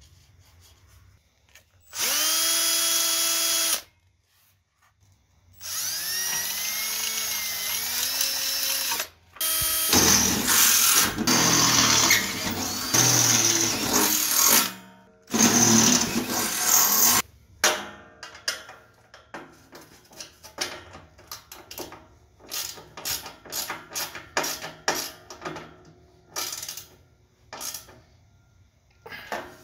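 Cordless drill: a brief steady whir, then the motor speeding up and slowing on the trigger, then drilling into the steel plate with a harsh grinding noise in several bursts. After that a long run of short metal clicks and knocks as bolts are fitted and tightened with a wrench.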